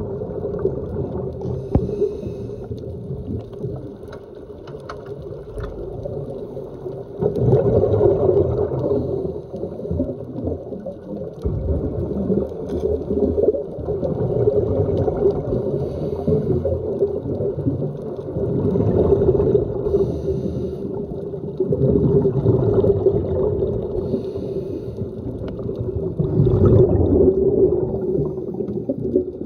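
Muffled underwater sound through a phone's waterproof dive case: a steady low drone, with gurgling surges of scuba divers' exhaled bubbles every few seconds.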